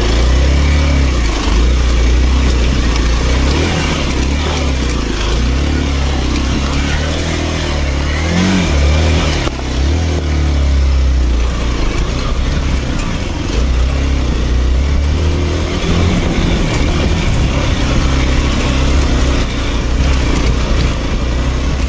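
Hero Xpulse 200's single-cylinder engine pulling the motorcycle up a rough off-road climb, its revs rising and dropping with throttle and gear changes, with wind and ride noise over it.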